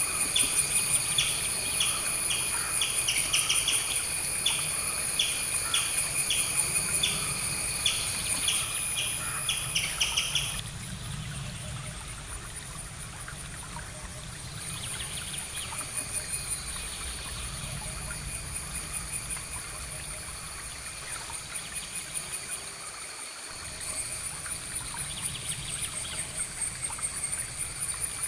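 Outdoor insect chorus with a steady high, pulsing trill, joined by a repeated chirping call about twice a second that stops about ten seconds in and comes back briefly twice later.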